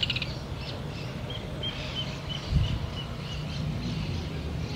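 A bird calling in a row of short, evenly spaced high chirps, about three a second, over a steady low rumble. There is one dull thump about two and a half seconds in.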